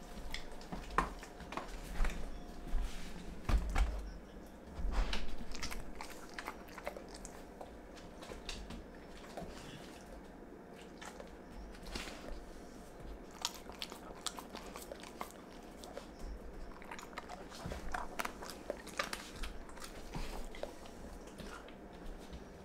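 A dog chewing and crunching on a piece of raw pig skin, with many sharp bites and crunches. They come thickest and loudest in the first several seconds, then slower and scattered.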